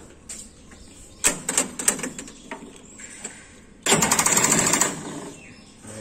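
John Deere tractor's starter solenoid clicking a few times, then chattering in a fast, loud run of ticks for about a second, without the starter turning the engine over. It is the tick-tick-tick of a battery too run down to crank the engine.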